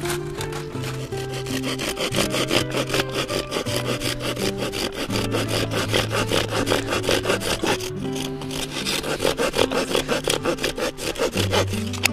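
Knife blade scraping and shaving along the edge of a wooden board in quick repeated strokes, whittling it down into kindling. Background music plays under it.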